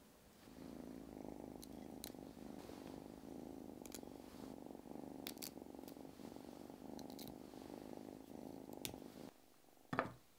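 A cat purring steadily in a fast rough buzz that stops shortly before the end, with a few faint clicks over it and one sharp knock near the end.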